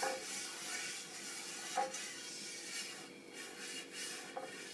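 Brush spreading oil over a non-stick grill pan: soft repeated rubbing strokes, with a few light clicks.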